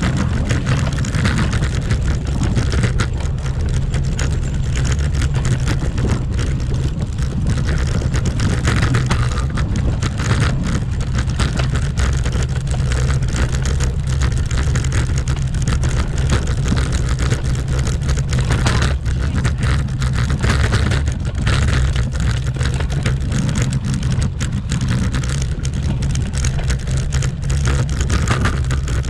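Bicycle rattling over cobblestones: a steady low rumble packed with rapid clicks and jolts that never lets up.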